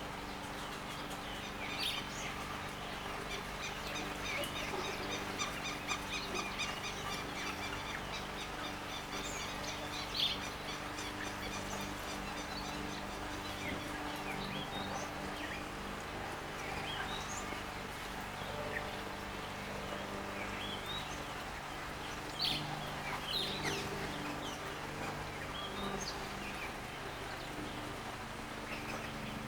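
Wild garden birds chirping and calling, with a fast run of repeated notes from about four to ten seconds in, over the steady splashing of a bird bath fountain and a low steady hum.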